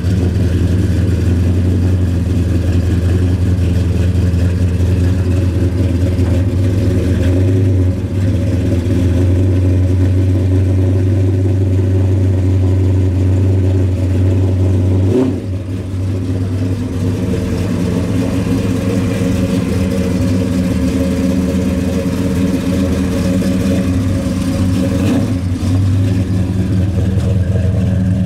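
1960s Oldsmobile V8 running through its exhaust, idling and then pulling away at low speed. A single sharp knock about halfway through, with a brief dip in the engine sound.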